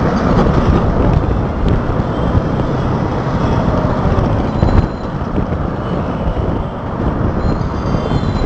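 Steady city traffic and road noise heard from a moving vehicle: a loud, continuous rumble.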